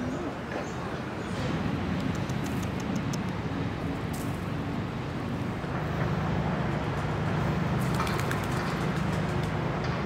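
Steady outdoor rumble of distant road traffic, with a few faint high clicks about two seconds in and again near the end.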